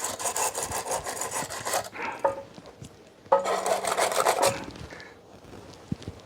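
Thread sealant being put onto a leaking fitting thread at an air compressor's pressure switch: two stretches of rasping rubbing, each a second or two long and made of quick strokes, with light handling noises between them.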